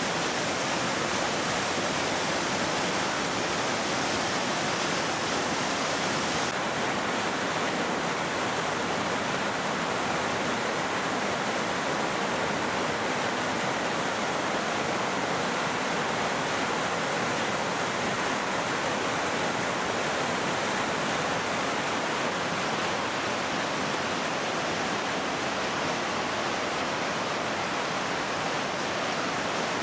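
Swollen floodwater of the Guadiana river pouring over a low weir into churning white water: a loud, steady rush.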